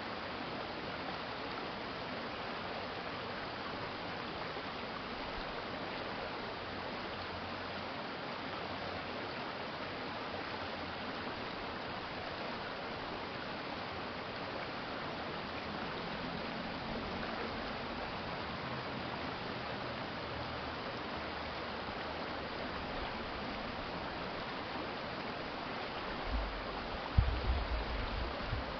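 Stream water flowing steadily over its bed, an even rushing and gurgling. A few short, low thumps come near the end.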